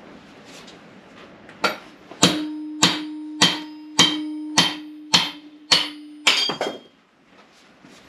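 Lump hammer striking the end of a bearing removal tool's metal shaft about nine times, a little under two blows a second, driving an old wheel bearing out of a motorcycle front wheel. Each blow is a sharp metallic strike, and a ringing tone carries on between the blows.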